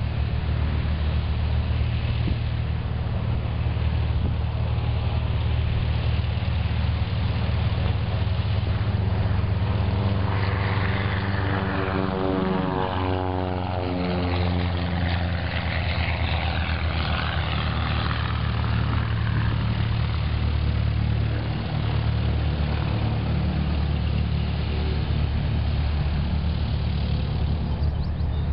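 Cessna 172SP's four-cylinder Lycoming engine and propeller running at taxi power as the plane rolls past, the propeller hum dropping in pitch as it goes by about halfway through, then steady as it moves away.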